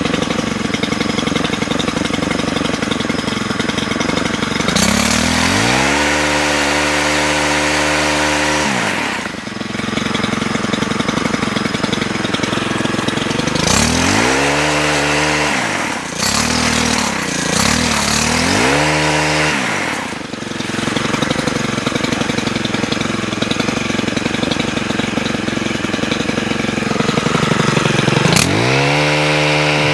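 Stihl HT103 pole saw's 4-MIX four-stroke engine idling, then revved up four times, each time held high for a second or more before it drops back to idle.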